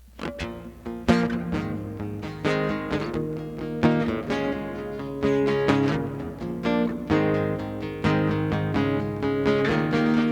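Guitar playing the instrumental introduction to a song, a run of plucked notes and chords that starts suddenly at the beginning.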